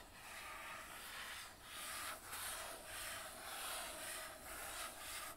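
A book being handled and rubbed close to the microphone: a soft scraping hiss that swells and fades in several strokes.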